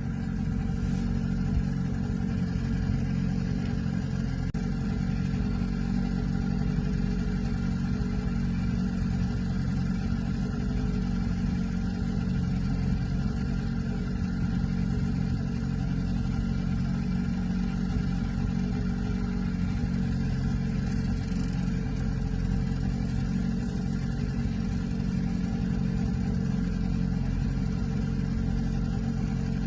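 Boat engine running steadily at trolling speed, a constant deep drone with no change in pitch.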